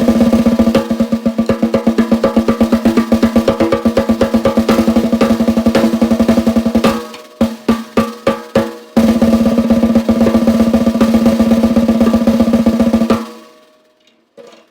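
Brass 14x5.5 Yamaha Recording Custom snare drum, tuned high, with Pure Sound Equalizer snare wires, played in fast rolls with a steady ringing pitch. About halfway a handful of separate strokes break the roll, then another fast passage stops about a second and a half before the end and the drum rings out, with one light stroke near the end.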